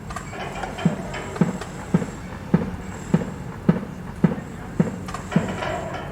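Construction-site work: a dull, heavy thud repeating at an even pace, a little under twice a second, with lighter clatter between the blows.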